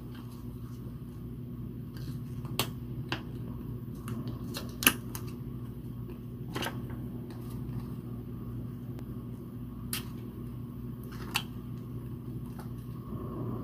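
Paper being cut out and handled by hand: scattered sharp clicks and light rustles, the loudest about five seconds in, over a steady low hum.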